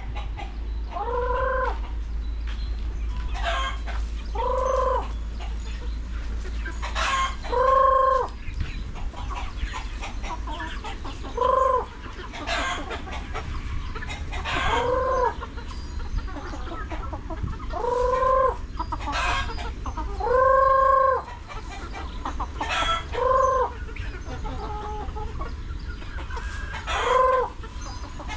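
Flock of chickens clucking, with a loud drawn-out call that rises and falls about every three seconds, under a steady low rumble.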